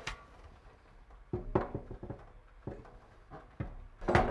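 Metal housing of a radiant garage heater clanking and knocking against its steel wall bracket as it is lifted and hooked on. There is a cluster of knocks with a short metallic ring a little over a second in, lighter taps after that, and the loudest clank near the end.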